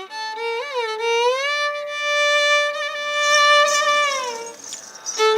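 Carnatic music: a single melodic line with sliding ornaments and one long held note in the middle. It fades out about four and a half seconds in, and a new phrase starts near the end.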